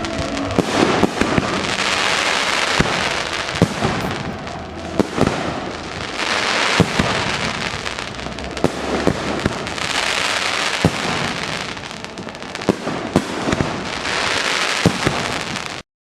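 Fireworks: a string of sharp bangs over a crackling hiss that swells and fades every few seconds, cutting off suddenly near the end.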